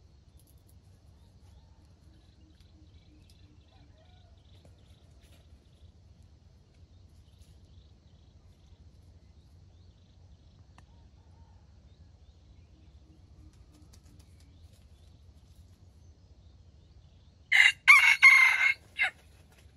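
Red junglefowl rooster crowing once near the end: a short, loud crow of about a second and a half, broken into several closely spaced parts.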